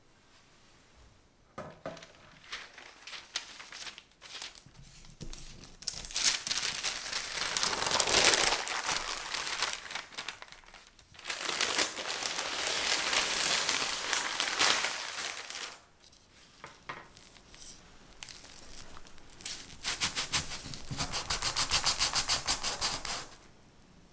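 Baking parchment paper crinkling and rustling as it is handled and peeled off a baked sheet of sponge biscuit, in three long spells with smaller rustles between them; the last spell is a quick run of strokes.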